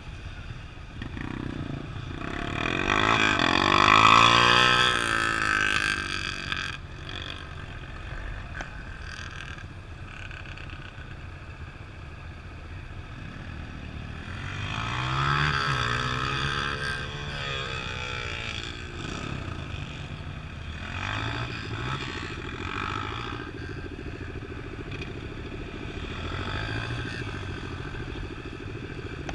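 Off-road vehicle engine revving up and down as it is driven, loudest about four seconds in, with another rise about fifteen seconds in and smaller ones later.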